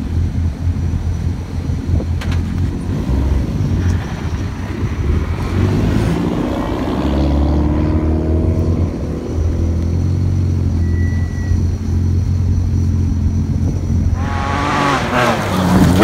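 Rally car engines running with a heavy low rumble, one revving up and down about halfway through. Near the end a rally car passes at speed on a gravel stage, its engine note climbing steeply and loud.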